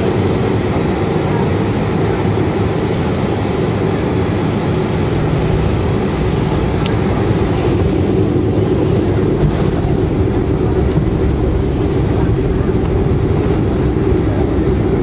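Steady rumble and engine noise inside the cabin of a Boeing 757-200 moving on the ground after landing. The higher hiss eases slightly about eight seconds in.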